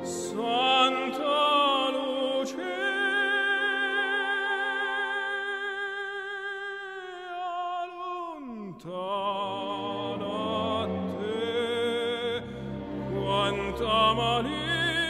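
Operatic singing over classical accompaniment. A voice with strong vibrato holds one long note for several seconds, slides steeply down about halfway through, then carries on with shorter phrases.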